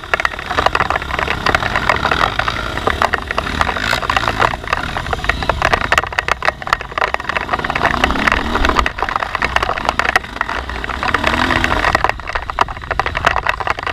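Dirt bike being ridden on a rough trail: a dense, irregular crackling and knocking covers a low engine rumble, and the engine's pitch rises and falls briefly twice.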